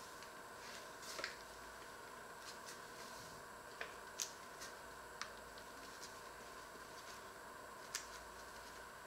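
Paper bag crinkling as it is handled and shaken over a steel mixing bowl: scattered faint, sharp crackles, a few seconds apart, over a faint steady hum.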